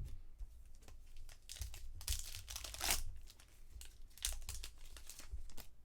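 Foil wrapper of a baseball card pack crinkling and tearing as it is opened and handled, in several rustling bursts, loudest about two to three seconds in. A soft low thump right at the start.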